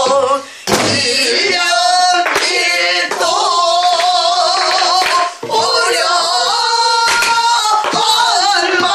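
A woman singing pansori in long, wavering held notes, accompanying herself on a sori-buk barrel drum struck with a stick, the strokes falling sparsely, about one every second or two.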